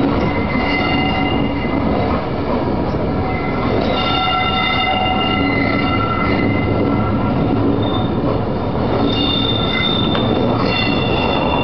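Train of passenger coaches rolling past on a curve, a steady rumble from the wheels and track with high, thin wheel squeals that come and go every few seconds.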